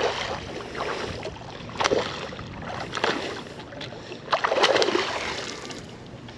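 Water splashing in irregular bursts as a hooked bull shark thrashes while being brought in to the bank. The longest and loudest burst comes about four and a half seconds in.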